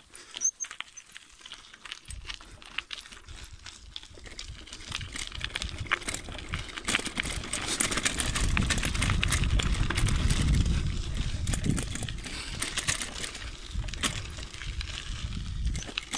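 Mountain bike ridden along a gravel dirt road: tyres crunching over loose stones with many sharp clicks and rattles, over a low rumble that grows loudest around the middle.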